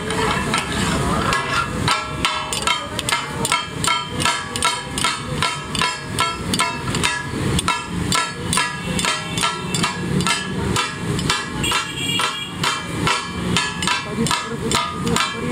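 Steel spatulas striking and scraping a hot iron tawa griddle as mutton chops are chopped and mixed into masala. The clanks come in a fast, steady rhythm, about three a second, each with a short metallic ring.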